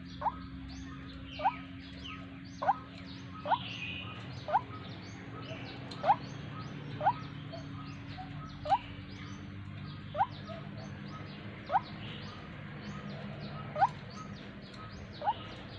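Young white-breasted waterhen giving short upward-sliding call notes, about a dozen at irregular one-to-two-second gaps: a juvenile still learning its call. Smaller birds chirp higher and fainter behind, over a low steady hum.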